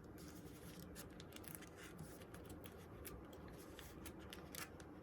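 Faint rustling and small irregular clicks of plastic photocard sleeves being folded and cards slid into them.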